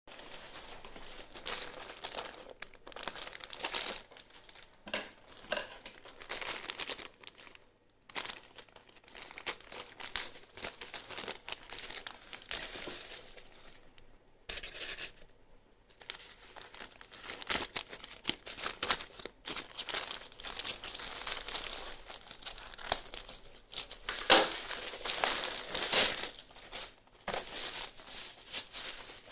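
Plastic postal mailer bag crinkling and rustling in irregular, stop-start handling as it is opened, then bubble wrap crinkling near the end.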